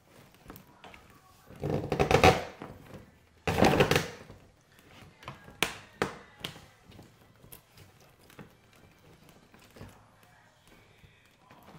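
Split spruce root being pulled through holes in birch bark to tighten a stitch: two scraping pulls of about a second each, followed by a few sharp clicks and crackles of the bark and root being handled.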